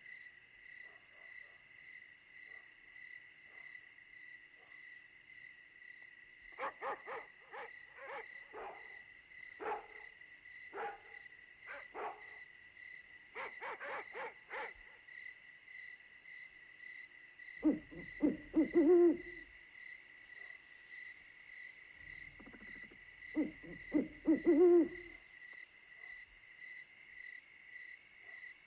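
Night ambience sound effect: crickets chirp steadily throughout. A run of short clicking calls comes first, then two series of low owl hoots, the louder events, near the middle and about two-thirds through.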